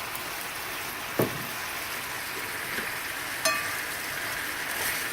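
Steak sizzling in a frying pan, a steady hiss. There is a short knock about a second in and a brief metallic clink about three and a half seconds in.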